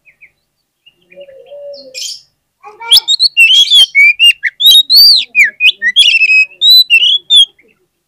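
Oriental magpie-robin singing loudly: a rapid run of whistled notes that slide up and down, mixed with sharp clicks. It starts after a few faint calls about three seconds in.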